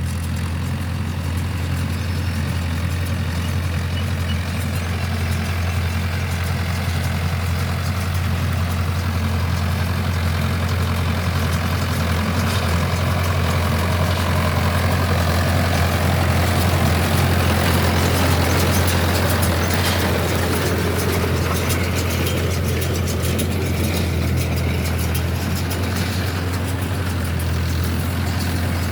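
Mahindra tractor engine running steadily with a deep, constant hum, driving a baler, with machinery noise that builds through the middle and a fine rattle in the second half.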